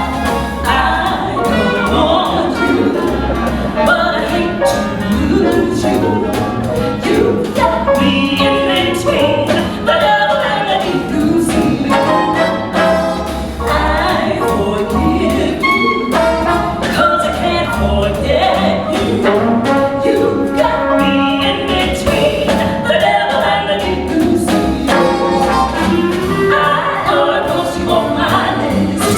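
Big-band jazz music: a brass-led band playing with singing over it.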